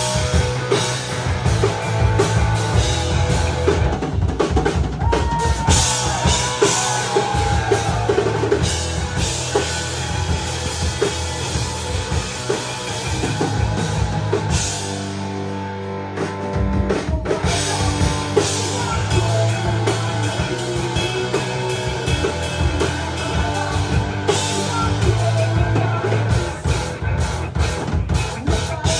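Rock band playing live: a full drum kit with kick and snare driving under electric guitar, coming in all together at the start.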